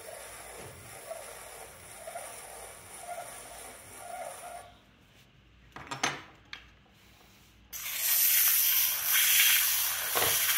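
A trimming tool scraping Bennetts terracotta clay on a turning potter's wheel, the scrape swelling about once a second. It stops a little before halfway, and after a couple of light clicks a rib is pressed against the spinning bowl, giving a louder, steady hiss of rubbing.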